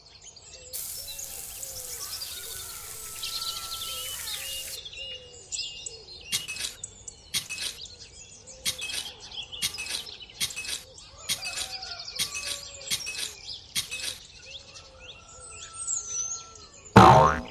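Birds chirping and singing throughout. Over them a finger scrapes a line through sand for a few seconds, then a tiny toy rake scratches the sand in short strokes, about two a second. A brief loud scrape comes near the end.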